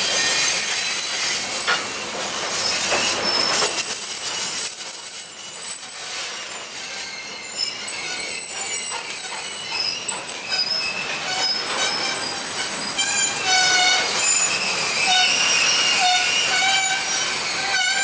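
Covered hopper cars of a sand train rolling past over the rails, the steel wheels squealing in high, shifting tones that come and go over the steady noise of the wheels on the track.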